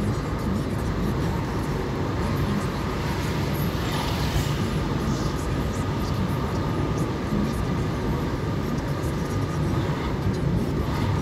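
Inside a moving car: steady engine and tyre rumble on the road at a constant speed.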